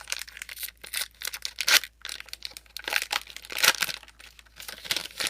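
A foil Pokémon trading card booster pack being torn open and its wrapper crinkled by hand, in irregular crackles with louder tears about 1.7, 3 and 3.7 seconds in.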